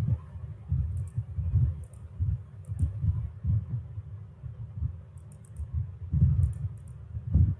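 Irregular soft low thumps, a few each second, with a handful of light sharp clicks, picked up by a desk microphone over a faint steady hum.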